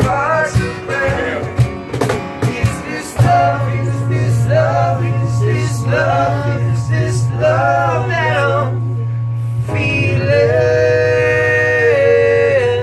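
Live acoustic music: a man singing with guitar. Strummed chords in the first few seconds give way to a sustained low note under the voice, and the phrase ends on a long held sung note.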